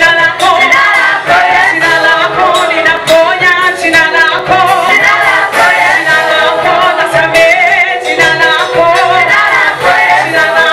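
Choir of mixed voices singing a Swahili gospel song in harmony, continuous and loud.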